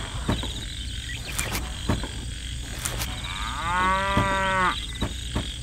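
A cow moos once, a single pitched call about a second long a little past the middle, over a steady low background with a few faint clicks.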